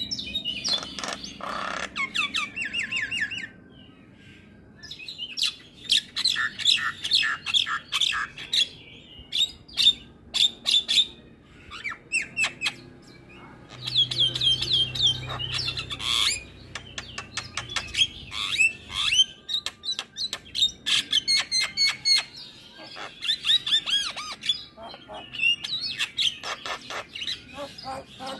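Javan myna singing a long, varied song of rapid clicks, chatters and sweeping whistled notes in bursts, with a short pause near the start and brief breaks between phrases.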